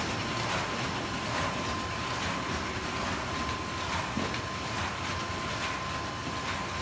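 Automatic flatbed die-cutting machine with stripping unit running: a steady mechanical clatter with a thin steady whine and a faint regular stroke a little under once a second.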